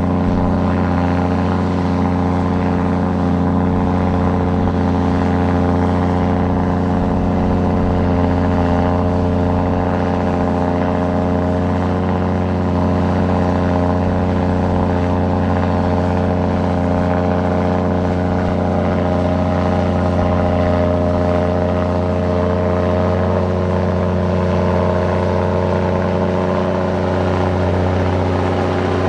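Large diesel engine of a heavy earthmoving machine running at a steady, held speed, its pitch changing only slightly near the end.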